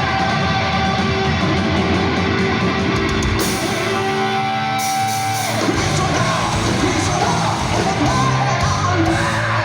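Heavy metal band playing live, with distorted guitars, drums and a singer shouting and singing over them. A crash of cymbals rings out a few seconds in.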